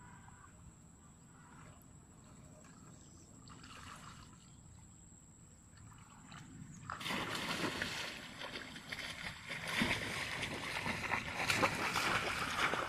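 Splashing and rustling of someone walking through shallow water and tall wet grass, starting suddenly about seven seconds in; before that only faint outdoor sound.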